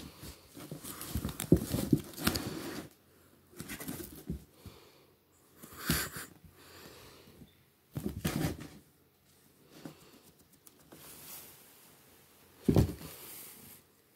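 A playing cat scuffling against a person's jacket sleeve, with fabric rustling and scratching in irregular bursts and a short, sharp loud one near the end.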